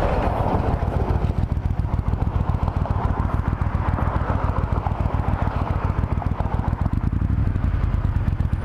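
Triumph Thunderbird Storm's big parallel-twin engine running at low revs, a steady, rapid low pulsing close to the microphone.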